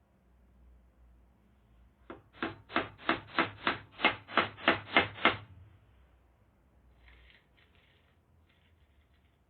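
Hammer driving a nail into wood: a quick run of about eleven sharp, even blows, roughly three a second, getting louder toward the end. A few faint short scrapes follow.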